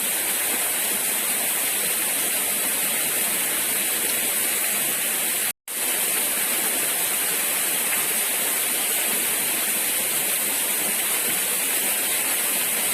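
Steady rushing of flowing water, an even hiss with no change in level. It breaks off for a split second about five and a half seconds in.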